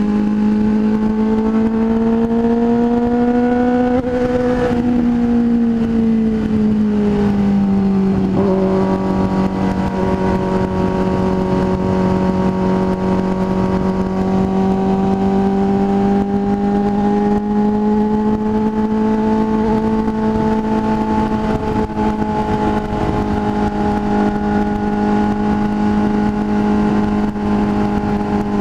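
Motorcycle engine at highway cruising speed with a steady drone and wind rush. It rises a little in pitch over the first few seconds, eases down, and changes briefly about eight seconds in, as if from a gear change, then holds steady.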